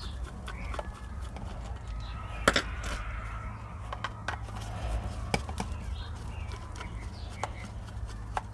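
Screwdriver clicking and scraping against the plastic housing of a small solar LED garden light as it is worked open, in scattered sharp clicks, the loudest about two and a half seconds in. A steady low hum runs underneath.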